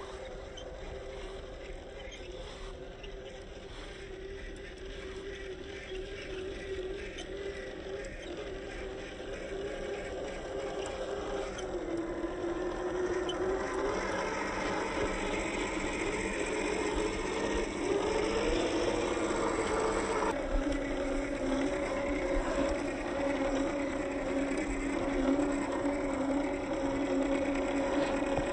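Electric drivetrain of a 1/10-scale RC Land Rover Series III crawler (Boom Racing BRX02, Hobbywing Fusion motor) driving through sand. The motor and gears whine, the pitch rising and falling with the throttle and shifting sharply about two-thirds in, and the sound grows louder as the truck comes closer.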